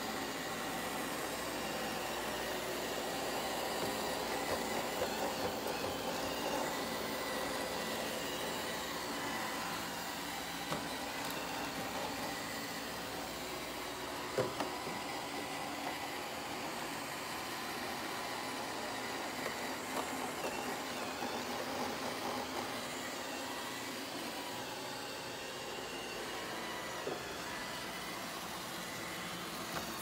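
iRobot Roomba 692 robot vacuum running on carpet: a steady whir of its motor and brushes with a faint whine, and a few brief knocks, the loudest about halfway through.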